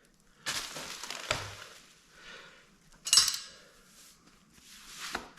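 Metal parts and tools clinking and scraping as a pit bike's front brake caliper is worked over the disc, with a few separate knocks, the loudest a sharp clank about three seconds in.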